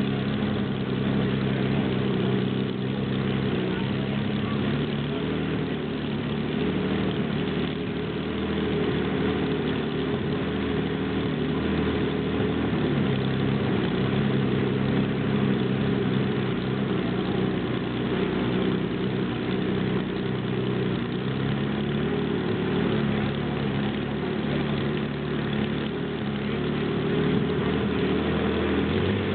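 Bluebird K3 hydroplane's engine idling steadily with an even, deep note, picking up slightly near the end.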